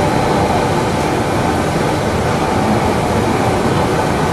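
Spice paste sizzling steadily in hot oil in a frying pan as it is sautéed.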